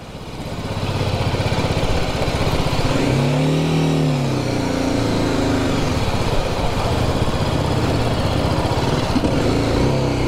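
BMW G310GS single-cylinder motorcycle under way, engine running under a steady rush of wind and road noise, growing louder over the first second as it picks up speed. About three seconds in, the engine note rises and then falls back once.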